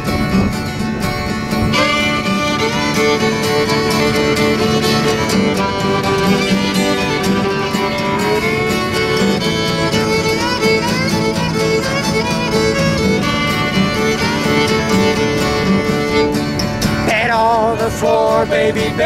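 Live country-style fiddle playing an instrumental break, bowed melody with slides, over a strummed acoustic guitar.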